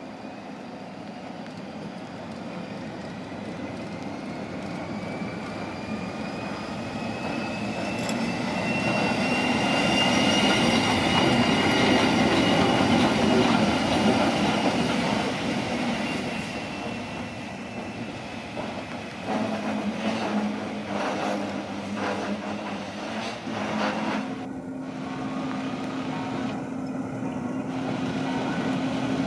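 A Rhaetian Railway Ge 4/4 I 'Crocodile' electric locomotive running slowly past on its own, its wheels squealing thinly on the curve and loudest midway as it passes close. In the second half a steady electric hum from the locomotive takes over, shifting up in pitch a few seconds later.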